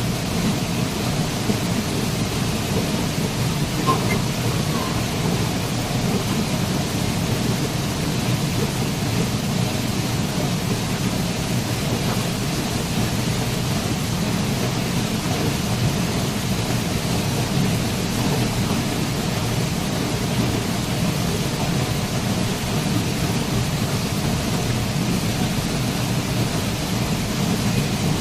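Waterfall: a steady rush of falling water with a strong low rumble.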